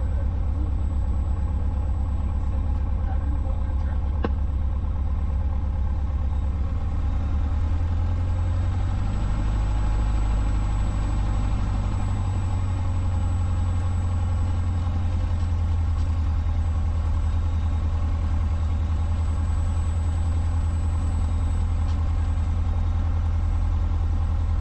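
A 1977 Cessna 150's four-cylinder Continental O-200 engine and propeller running at low power while taxiing, heard inside the cabin. The low propeller beat becomes steadier and slightly louder about eight seconds in.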